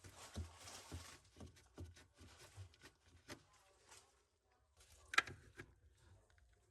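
Faint scattered knocks and clicks, with a brief hiss in the first second and one sharper click about five seconds in.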